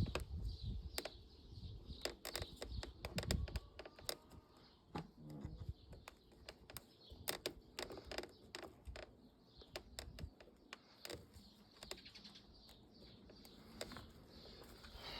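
Irregular clicks and short creaks from the interior trim of a Volkswagen Passat B8, heard inside the cabin. This is the cabin squeak that the owner takes as a sign of poor build quality.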